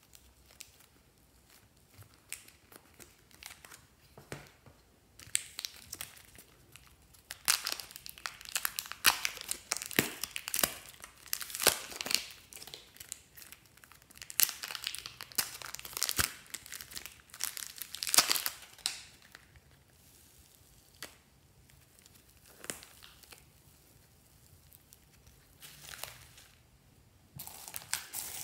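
Thin plastic wrapper crinkling and tearing as it is peeled off a lump of modeling clay, with a dense stretch of crackling in the middle and only scattered clicks near the end.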